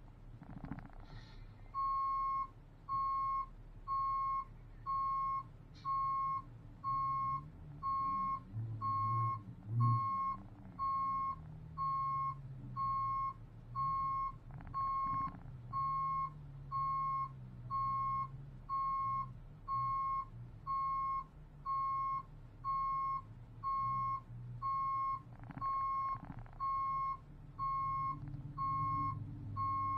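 Heavy tow truck's backup alarm beeping steadily, about one and a half beeps a second, starting about two seconds in, as the truck reverses. A diesel engine runs underneath, its pitch rising and falling.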